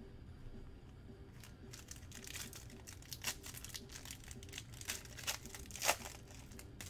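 A Panini Select basketball card pack's plastic foil wrapper being torn open and crinkled by hand: a run of sharp crackles that starts about a second and a half in, with the loudest crackle near the end.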